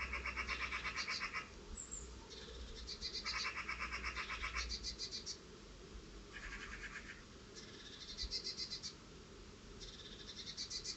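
Wild birds giving rapid, rattling alarm calls, one lower-pitched and one higher-pitched rattle trading back and forth, each lasting about a second: the birds are mobbing and scolding cats that have caught one of them.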